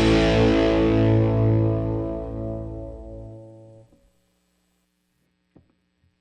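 A rock band's final chord ringing out on guitar with distortion and fading away over about four seconds; a faint click near the end.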